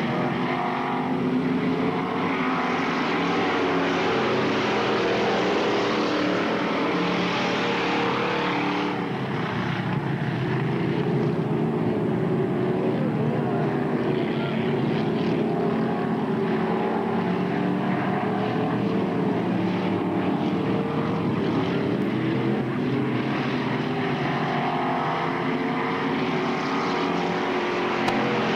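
A pack of dirt-track stock cars racing, several engines running at once with their pitches rising and falling as the drivers work the throttle.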